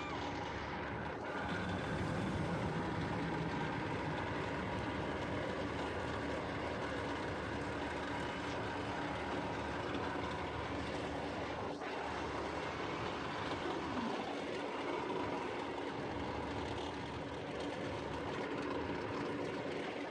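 Helix steel roller coaster train running along its track, a steady rolling noise from the ride that holds at an even level throughout.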